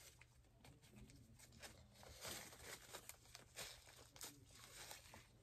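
Faint crinkling and tearing of a paper food wrapper, with light clicks and scrapes of a spoon in a foil takeaway tray.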